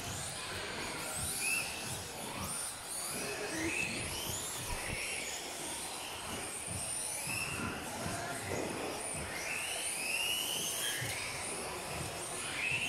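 Several radio-controlled off-road racing buggies running together, their motors whining in overlapping rising and falling pitches as they accelerate and brake around the track.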